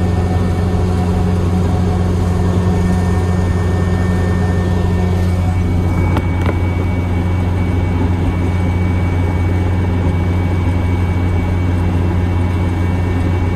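Kubota ER470 combine harvester running steadily while it cuts standing grain: a constant low engine drone with the machinery's steady hum, and a couple of faint ticks about six seconds in.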